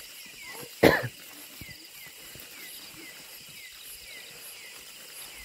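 A person coughs once, loud and short, about a second in. Behind it a rhythmic chirping from the night forest repeats about twice a second.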